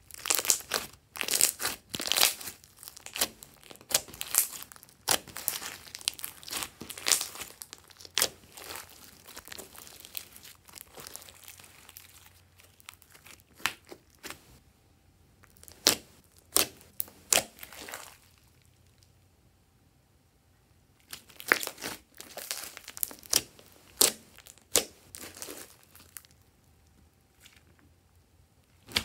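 Hands squeezing and pressing glossy slime, making sticky, crackling pops and clicks. They come in irregular flurries, with a lull about two-thirds of the way through.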